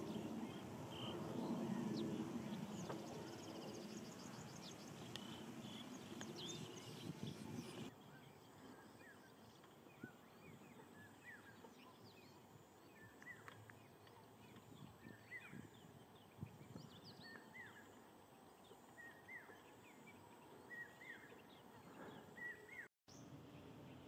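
Faint field ambience: wind rumbling on the microphone with a few distant bird calls for the first eight seconds or so, then quieter, with short rising chirps of small birds every second or two.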